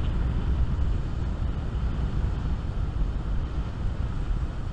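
Strong wind buffeting the microphone in a steady low rumble, with the hiss of surf breaking against the breakwall behind it.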